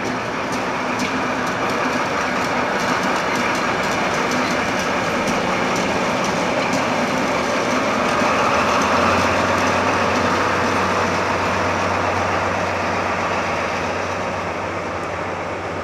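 Diesel locomotive engines running, a dense steady rumble of rail-yard machinery. About halfway through, a steady low engine hum comes in and the sound grows slightly louder.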